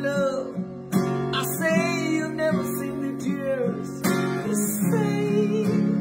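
A man singing a slow song, accompanied by his own strummed acoustic guitar.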